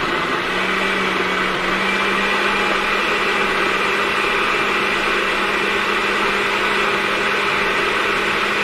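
Kitchen blender running steadily, grinding onions and whole coriander seed into a purée.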